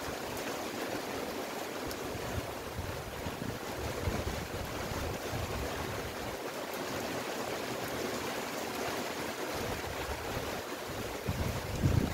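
Steady rain falling on shrubs and grass. Gusts of wind buffet the microphone now and then, with a stronger gust near the end.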